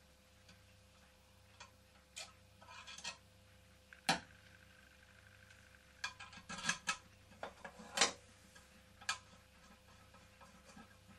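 Scattered metallic clicks and taps from hands handling small toy steam engines. A sharp click about four seconds in rings on briefly, a clump of clicks follows between six and seven seconds, and another sharp knock comes about eight seconds in, over a faint steady hum.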